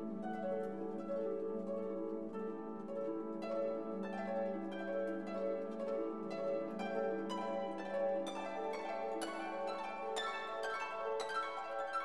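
Instrumental background music of plucked strings, with a held low note beneath and notes coming thicker and faster from about four seconds in.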